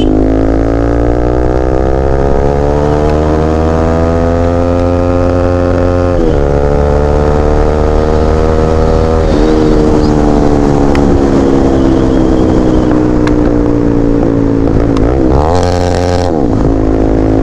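Single-cylinder engine of a Bajaj Pulsar NS200 running loudly through a newly fitted aftermarket exhaust. Its pitch climbs slowly, breaks sharply about six seconds in and again about nine seconds in, then falls away, with a few quick revs up and down near the end.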